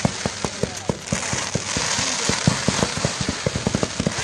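Fireworks display: a rapid string of sharp bangs and pops, several a second, over the steady hiss of ground fountains spraying sparks.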